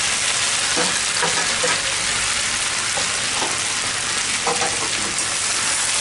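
Sliced potatoes and onions frying on high flame in a kadhai: a steady sizzle, with a metal slotted spatula scraping and knocking against the pan a few times as they are stirred.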